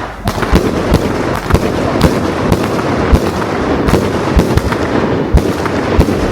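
A consumer fireworks cake (multi-shot repeater) firing: a rapid, loud series of booms, about three or four a second, over continuous noise from the shots.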